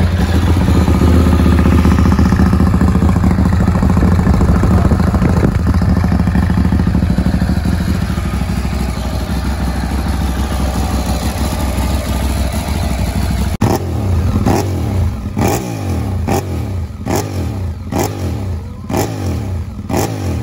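Ducati 848 Evo L-twin engine running steadily just after start-up, with engine flush in its oil, then revved in a string of quick throttle blips, about one a second, for the last several seconds.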